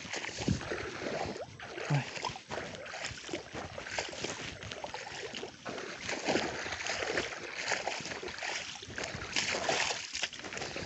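Footsteps squelching and splashing through shallow muddy water and soft mud, in an uneven walking rhythm.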